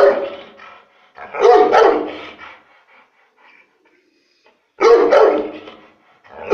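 Pit bull-type guard dog barking loud, deep barks in short volleys: one about a second in and another near the end, with a pause of about two seconds between them.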